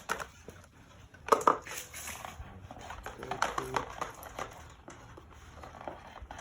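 Rustling and clicking of a coiled power cable being handled and unwound, with two sharper knocks about a second and a half in.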